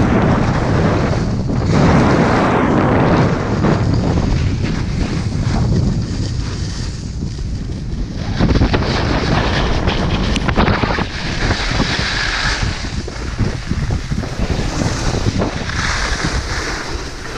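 Wind rushing over an action-camera microphone, mixed with the hiss and scrape of sliding over packed snow on a downhill snowscoot run.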